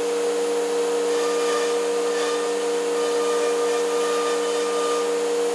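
Talent CNC router's spindle cutting a melamine sheet: a steady high whine over the hiss of the dust extraction.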